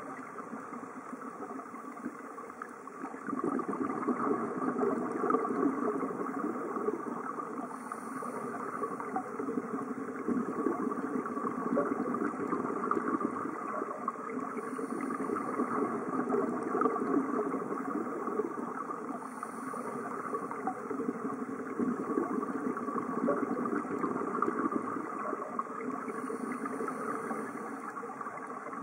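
Underwater sound of a scuba diver's regulator: exhaled bubbles crackling and burbling in surges every several seconds, each followed by a short hiss of the next breath in.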